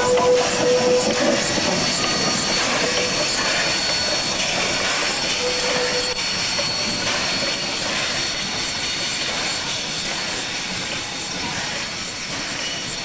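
Railway train running, with a steady hiss and a thin high-pitched whine throughout; a brief lower tone dies away about a second in.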